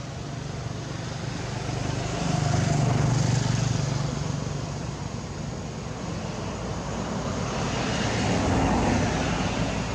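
Engine noise of passing motor traffic, a low drone that swells and fades twice: about two seconds in and again near the end.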